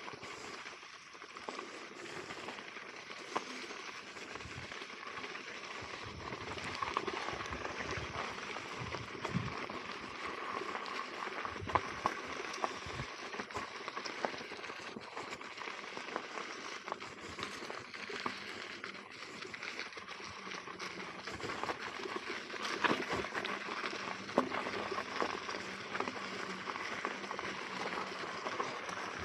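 Electric unicycle ridden over a rough, stony trail: a steady crackling, rattling noise of the tyre rolling over gravel and dirt, with frequent small knocks and clicks from the bumps.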